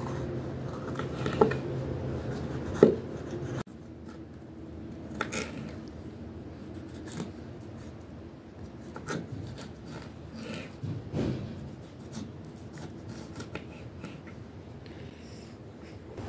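Kitchen knife slicing a green bell pepper on a cutting board: irregular crisp cuts and taps of the blade on the board, a second or two apart. A low hum underneath stops abruptly a few seconds in.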